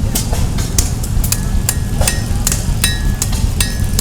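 Blacksmith's hammer striking metal on an anvil in a quick run of blows, roughly three to four a second, several leaving a short metallic ring. A steady low rumble runs underneath.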